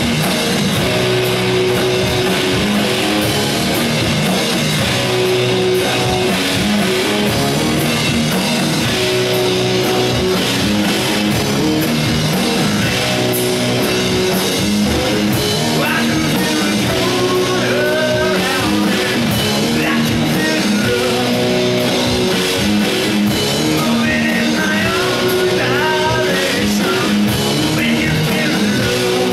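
Rock band playing live: distorted electric guitars over a drum kit, loud and continuous, with sung vocals coming in over the band in the second half.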